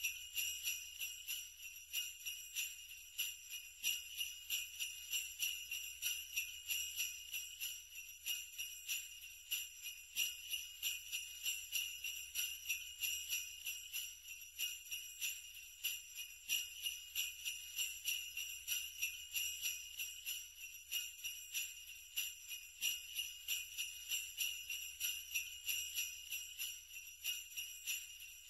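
Jingle bells shaken in a steady, even rhythm, a sleigh-bell backing track with no other instruments.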